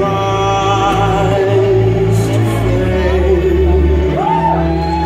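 Loud music: a singing voice over a deep bass line that steps from note to note.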